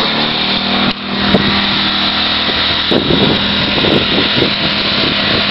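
Gasoline engine of a pressure washer running steadily at a constant speed, dipping briefly about a second in. Uneven rumble on the microphone joins in from about three seconds in.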